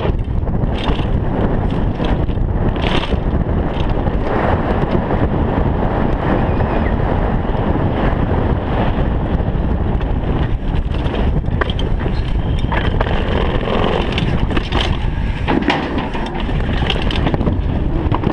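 Wind buffeting a chest-mounted action camera's microphone at speed on a downhill mountain bike, over a steady roar of tyres on the riding surface, broken by frequent sharp knocks and rattles from the bike hitting bumps.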